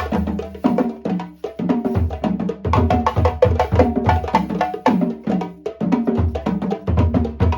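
Balafon played in a fast run of short, ringing wooden notes over a steady low drum beat.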